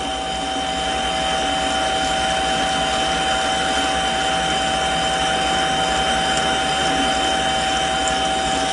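Mini lathe running with a steady whine while a parting blade is fed slowly into a spinning 1¼-inch 1018 steel rod, cutting it off.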